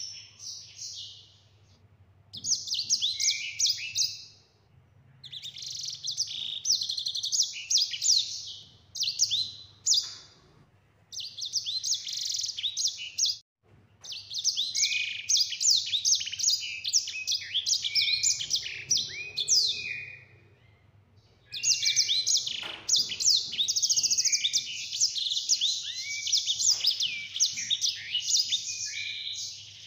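Caged grey singing finch (sanger) singing: fast, rolling phrases of high twittering trills a few seconds long, broken by short pauses, with a long unbroken run in the last third.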